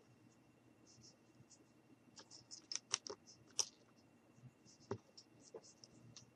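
Faint clicks and scratches of small wooden craft-stick pieces being handled and pressed together on a wooden tabletop, with a few sharper clicks about three seconds in.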